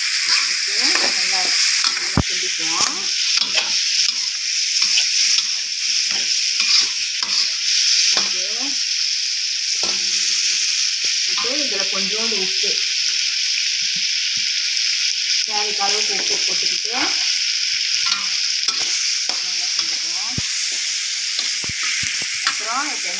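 Tofu cubes with capsicum and tomato sizzling in oil in a metal kadai, stirred with a steel spatula that scrapes against the pan. The sizzle runs steadily while the scraping comes in uneven strokes.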